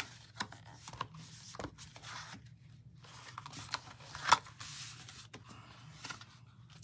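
Small cardstock Mini Paper Pumpkin box being handled and its flaps folded over by hand: light paper rustling and crinkling with scattered clicks, the sharpest about four seconds in.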